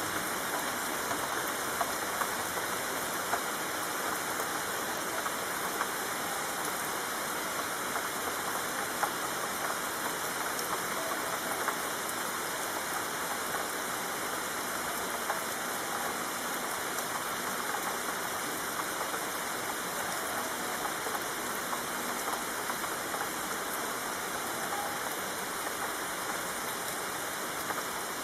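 Steady rain: a dense, even hiss of falling rain with scattered louder drop ticks.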